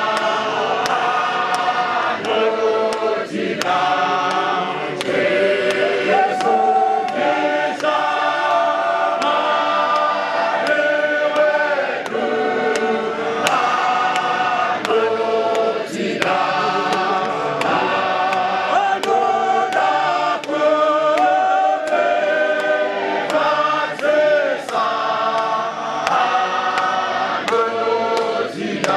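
A church congregation singing a hymn together in Shona, many voices in harmony, with sharp regular beats keeping time.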